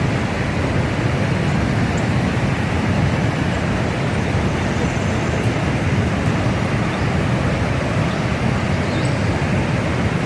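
River rapids rushing: a loud, steady roar of white water.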